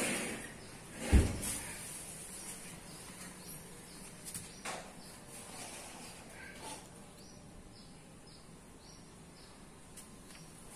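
Quiet background ambience with one dull thump about a second in and a few light clicks after it. Faint, short, repeated bird chirps come through in the second half.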